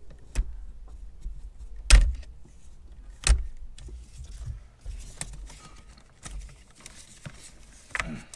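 Sharp clicks and knocks of a plastic oxygen-sensor wiring connector being worked loose with a pick tool under a truck, the loudest about two seconds in and another about a second later, with a double knock near the end.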